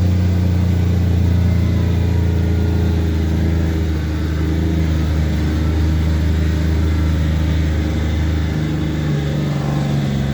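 Kawasaki Mule utility vehicle's engine running steadily while it tows a loaded trailer up a trail, with a low, even hum that shifts slightly in pitch near the end.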